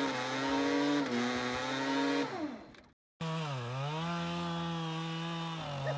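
A small engine running at steady speed that winds down and fades out about two and a half seconds in. After a moment of silence it runs again, its pitch dipping briefly and then holding steady.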